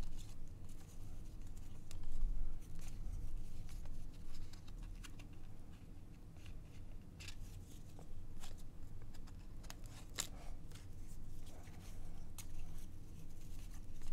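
1990 Upper Deck baseball cards being flipped through by hand, one card slid off the stack after another: soft, scattered clicks and slides of card stock over a low steady hum.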